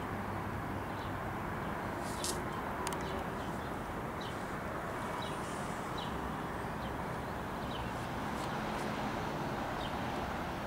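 Steady outdoor background rush, with a small bird giving short, high chirps about once a second.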